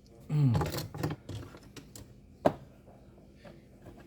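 A short wordless vocal sound falling in pitch, then a single sharp click about halfway through, with a few faint ticks around it.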